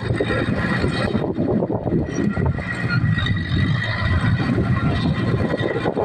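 Komatsu crawler bulldozer's diesel engine running steadily under load as the machine pushes and levels loose soil.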